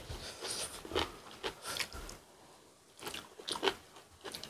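Close-miked eating sounds: biting and chewing braised cutlassfish and side dishes, with irregular short crunchy clicks and smacks. They ease off for about a second in the middle, then pick up again.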